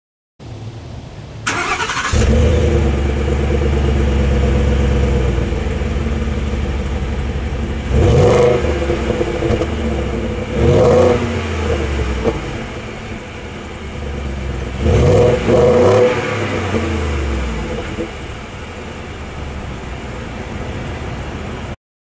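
2017 Ford F-150's 5.0-litre V8 warm-started: a brief crank, then it catches and settles into a fast idle. It is revved in short throttle blips three times, the exhaust rising and falling in pitch each time.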